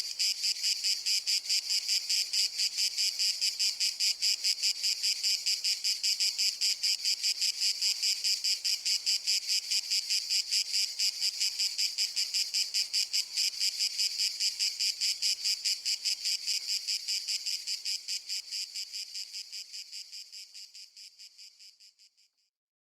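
Cicada singing: a high, rapidly pulsing buzz that holds steady, then fades away over the last few seconds.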